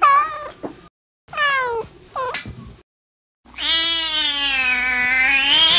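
Cat meowing: three short meows falling in pitch, then one long drawn-out meow that wavers slightly and cuts off abruptly. These are edited-in sound-effect clips with dead silence between them.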